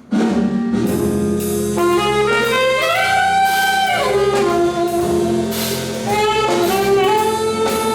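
Jazz music with saxophone and brass lines over a drum kit, starting suddenly at full level.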